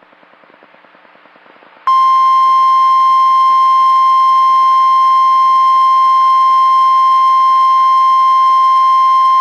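NOAA Weather Radio 1050 Hz warning alert tone: a single loud, steady tone that cuts in sharply about two seconds in and holds, after faint static from the receiver.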